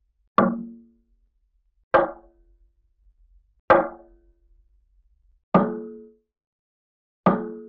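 Cartoon-style percussive hit sound effect played five times, one every couple of seconds: each is a sharp knock with a short, low ringing tone that dies away within about half a second.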